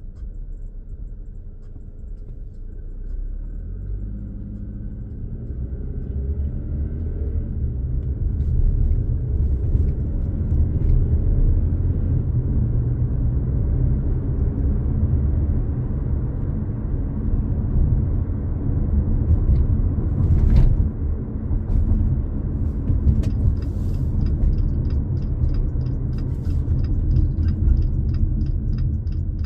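2022 Jeep Compass's 2.4-litre four-cylinder engine and road rumble from inside the cabin, the engine note rising as the SUV accelerates over the first several seconds, then settling into steady cruising. A regular ticking comes in near the end.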